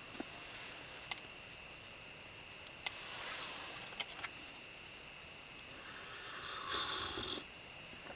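Quiet ambience with a faint steady high tone, a few sharp isolated clicks and two brief soft rushes of noise.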